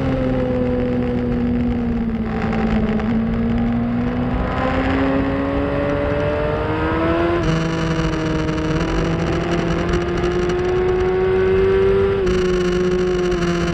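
2004 Yamaha R1's inline-four engine running hard on track, heard from the bike's onboard camera over rushing wind. The engine note dips, then climbs steadily, and drops in pitch once near the end.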